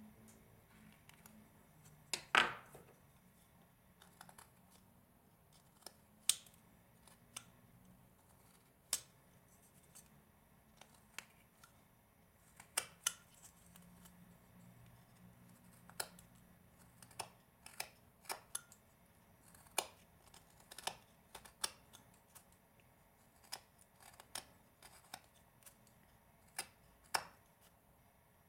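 Small carving knife slicing into a hand-held block of wood: short, crisp cuts at an irregular pace, roughly one a second, the loudest about two seconds in.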